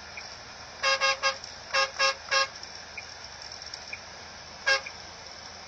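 Vehicle horn sounded in short toots: three quick ones, three more, then a single toot a couple of seconds later, over the steady road noise of a vehicle cruising on a highway.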